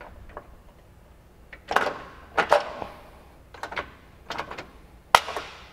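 Metal suspension parts being worked into place by hand: about five sharp knocks and clanks as the hub is tipped and the radius rod and its bolt are lined up, some ringing briefly, the loudest near the end.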